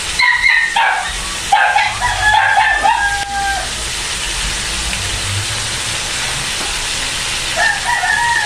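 A rooster crows twice: one call of about three seconds, ending on a long held note, at the start, and another beginning near the end. Underneath runs a steady hiss of chicken, onions and garlic frying in oil in a wok.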